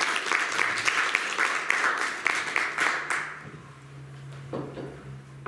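Audience applauding, dense clapping that dies away about three seconds in, leaving a faint low steady hum.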